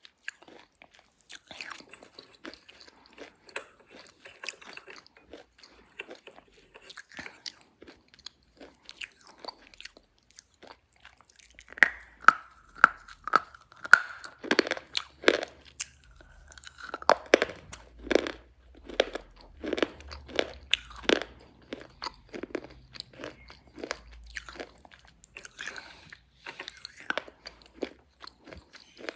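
Black A1 slate pencils being bitten and chewed, a continuous series of sharp crunches that grow louder about halfway through.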